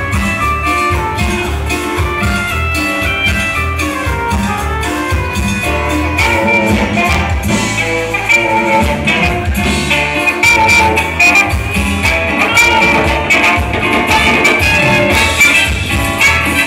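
Loud dance music with a steady beat, played over a large loudspeaker sound system.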